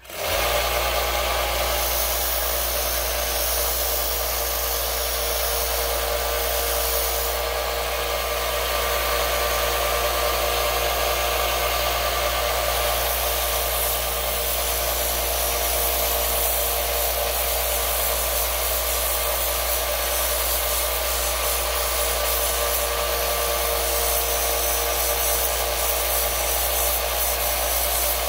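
Small benchtop belt grinder with an 80-grit belt switching on and running steadily, its motor humming under the rasp of a workpiece held against the moving belt.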